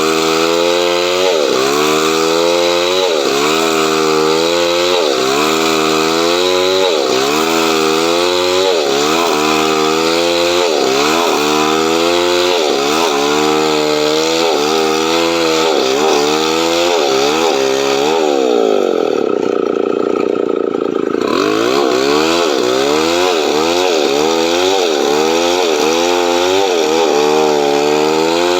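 Chainsaw cutting coconut palm wood. The engine's pitch swings up and down about once a second as the chain bites and frees. About two-thirds of the way through, the revs drop briefly and then climb again.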